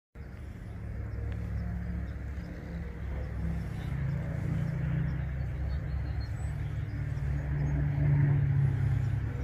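Twin Wright R-2600 radial engines of a B-25J Mitchell bomber droning on its landing approach, a low steady rumble that grows louder as the plane comes closer.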